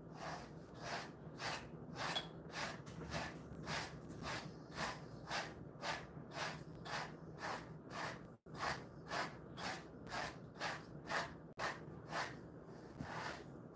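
Grooming brush stroked repeatedly through a Jindo-mix dog's thick coat, a short brisk swish about twice a second.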